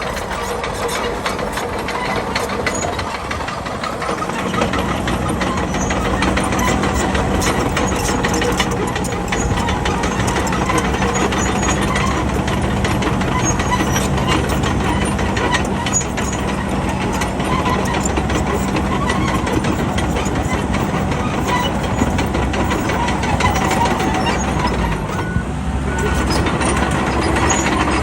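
Bulldozer's diesel engine running with a constant metallic clatter. The engine note grows louder and heavier about four seconds in, as if taking load, and drops briefly before picking up again near the end.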